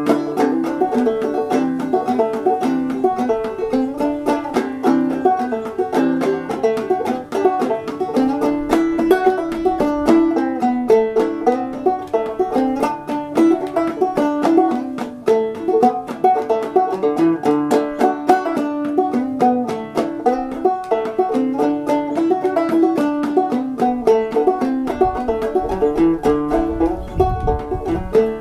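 Open-back banjo played clawhammer style, a steady run of plucked and brushed notes in an old-time fiddle tune. A brief low rumble comes in near the end.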